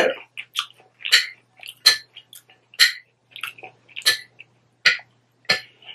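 Metal fork clinking and scraping against a glass salad bowl, with chewing in between: a string of short, sharp clicks, roughly two a second.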